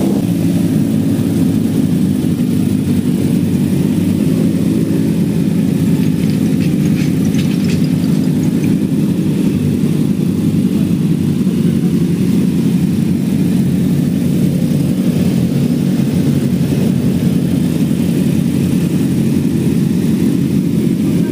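Parked superbike engines idling: a steady low engine drone that holds an even pitch and level, with no revving.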